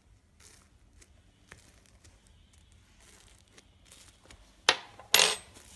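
Bubbling foam crackling faintly as a metal spoon stirs through it, with two much louder noisy strokes about half a second apart near the end.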